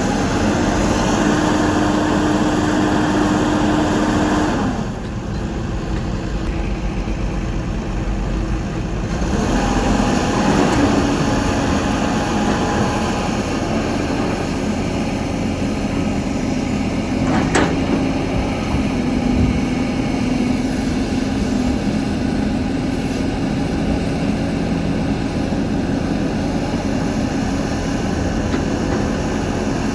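Caterpillar 320 excavator's diesel engine running under working load. The high part of the sound falls away briefly between about five and nine seconds in, then picks up again. There is one sharp knock a little past the middle.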